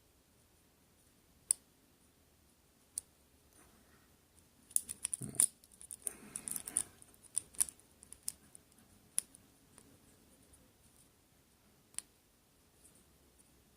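Lock-picking pick clicking and scraping against the pin tumblers inside a solid brass Master Lock No. 6 padlock. Single clicks come every second or two, with a dense run of clicking and rubbing about five to seven seconds in.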